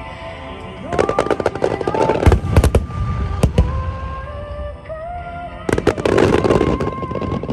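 Fireworks shells bursting with dense crackling in two clusters, about a second in and again near six seconds in, with deep booms around two and a half seconds in, over music.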